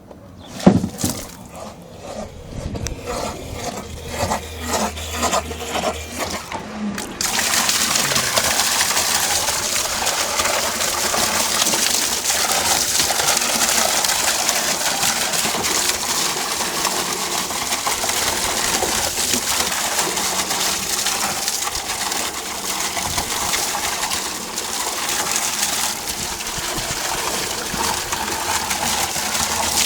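A few knocks, then about seven seconds in a steady rush of gushing water starts suddenly and runs on, during a battery backup sump pump test.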